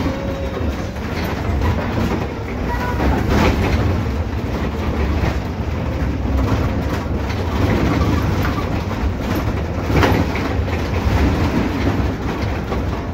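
Cabin noise of a MAN Lion's City L city bus on the move: a steady low engine and road rumble with interior rattles, and a few sharp knocks, the loudest about ten seconds in.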